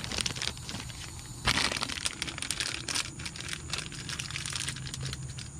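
Crinkly plastic packaging being handled, with a run of crackles and clicks and one louder crackle about one and a half seconds in.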